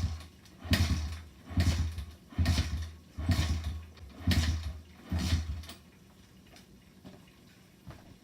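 Suzuki DRZ110 pit bike's 110 cc four-stroke single being kicked over about seven times in a row, each kick spinning the engine briefly without it catching. It cranks but does not fire, though it has spark and a freshly cleaned carburettor.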